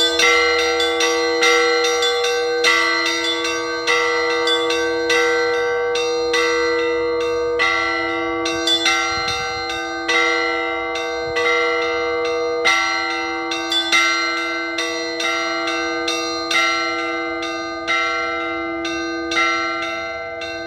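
Orthodox church bells ringing a peal: several bells struck over and over in a quick, repeating pattern, with a louder stroke about every second and a half, their tones ringing on between strikes.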